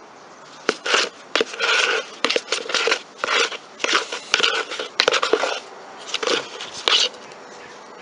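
Trowel scraping and knocking against a plastic bucket of wet cement patch. It is an irregular run of rough scrapes with a few sharp clicks, starting just under a second in and stopping about a second before the end.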